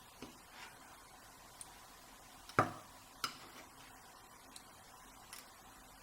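A few small, sharp clicks and light metallic taps, the loudest about two and a half seconds in with another just after, from the tiny pins and springs of a Schlage Primus lock cylinder being taken out and handled.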